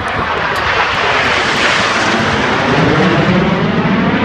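Airplane making a loud flyby: an engine roar that swells to a peak about a second or two in, then carries on with a sweeping, phasing sound as the aircraft passes.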